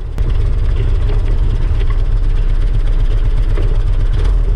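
1952 Willys M38 Jeep's four-cylinder flathead engine running, a steady low rumble that comes up sharply just after the start.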